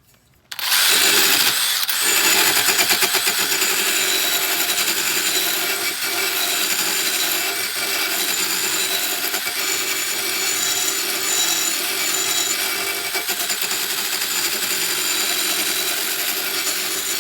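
DeWalt impact driver spinning a router grinding stone against the edge of a steel lawn mower blade, sharpening it. It starts about half a second in and runs steadily, a high whine over a grinding rasp.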